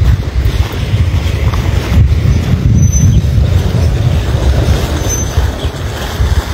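Loud, uneven low rumble of noise on a handheld phone's microphone while the person filming walks, with no clear pitch or rhythm.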